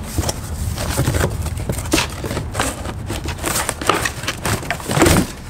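Cardboard box being slit open with a utility knife and its cardboard packing pulled out: irregular scraping, tearing and rustling of cardboard with scattered clicks.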